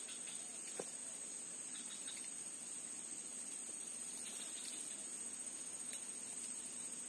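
Steady, shrill chorus of insects in the surrounding vegetation, with faint short chirps lower down and two faint clicks.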